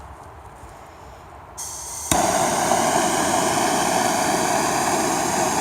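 Handheld gas torch being lit: gas hisses from the nozzle about a second and a half in, catches with a sharp pop half a second later, then burns with a loud, steady roar.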